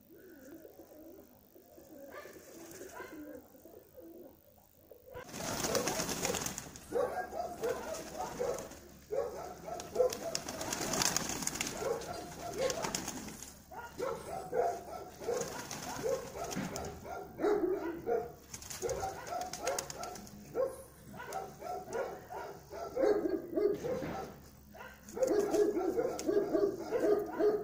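Domestic pigeons cooing, many short repeated calls overlapping. The calls are faint at first and grow fuller from about five seconds in, with occasional louder rushes of noise.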